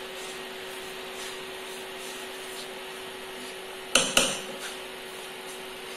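Silicone spatula stirring dry-roasted wheat flour in a nonstick pan, over a steady hum. About four seconds in, the spatula is knocked twice against the pan's rim.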